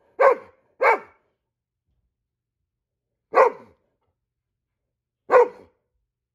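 Goldendoodle giving alert barks: two quick barks at the start, then single barks about three and a half and five and a half seconds in, each dropping in pitch.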